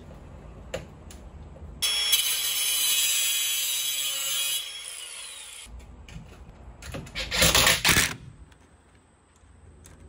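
Ryobi cordless drill running at a steady high whine for about three seconds, then spinning down, while drilling into a wooden board. About a second of loud scraping bursts follows near the end.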